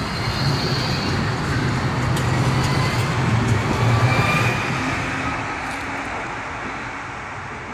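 City street traffic: a passing vehicle's low rumble swells to its loudest about four seconds in, then fades, over a steady hiss.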